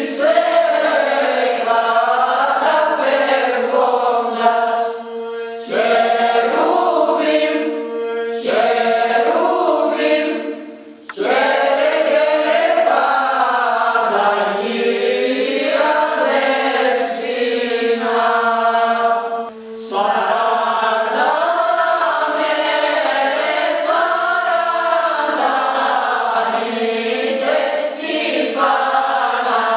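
Women's choir singing Greek Christmas carols (kalanta) unaccompanied, in sustained phrases with a few brief pauses between them.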